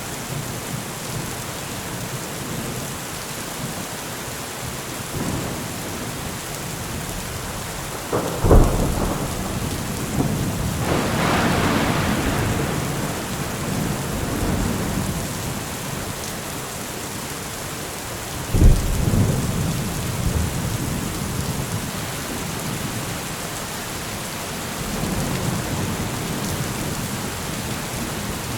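Steady rain falling, with thunder: a sharp crack about eight seconds in followed by a long rolling rumble, another sharp crack past the middle, and low rumbling again near the end.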